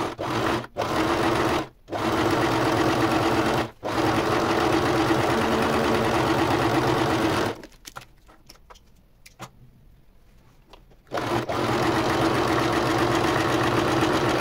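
Domestic electric sewing machine stitching a seam through knit fabric, running in stops and starts: a few short bursts, a long run of about four seconds, a pause of about three and a half seconds with only faint clicks, then another steady run of about three seconds.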